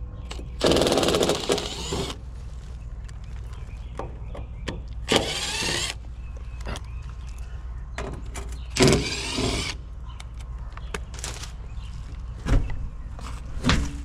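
Milwaukee M12 cordless impact driver backing out the sheet-metal screws of a gas pack's access panel, in three runs of about a second each. Near the end come short knocks of the metal panel being handled and lifted off.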